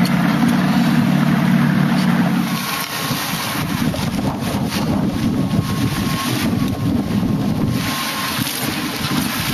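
A motorboat running, recorded aboard a moving boat: a steady low motor hum for the first couple of seconds, then wind buffeting the microphone and water rushing past for the rest.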